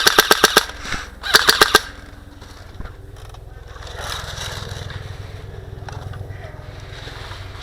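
Airsoft rifle firing two short full-auto bursts, rapid sharp clacks at roughly ten shots a second, the second burst about a second after the first. A low steady rumble follows.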